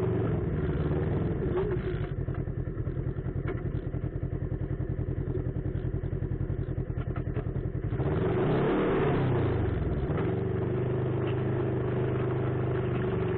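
Off-road vehicle engine running under way with a fast, even pulsing beat. About eight seconds in it gets louder, and the engine note dips and then climbs again as the revs change.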